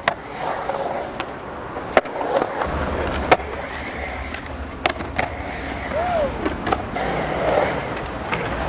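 Skateboard wheels rolling and carving on a concrete bowl, a steady rumble broken many times by sharp clacks of the board and trucks hitting the coping and the concrete.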